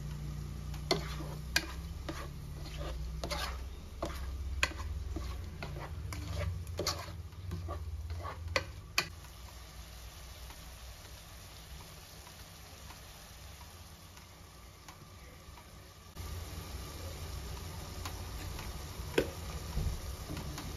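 A spoon stirring shelled mussels and onions in a large nonstick pot, knocking and scraping against the pot over a soft sizzle. There are a dozen or so knocks in the first half, then it goes quieter, with one more knock near the end.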